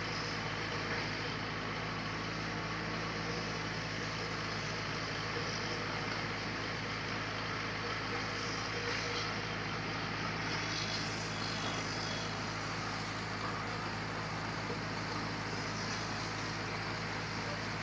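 Sawmill machinery running steadily: a constant low mechanical hum with an even hiss over it, no change in load.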